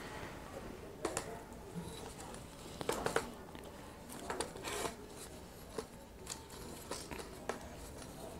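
A cheap 3110 tripod being handled as its legs are extended: scattered light clicks and knocks from its plastic lever locks and metal leg sections, loudest about three seconds in.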